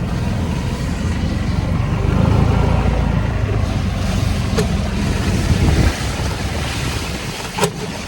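A vehicle rumbling along with wind buffeting the microphone; the rumble eases about six seconds in, and a sharp click comes near the end.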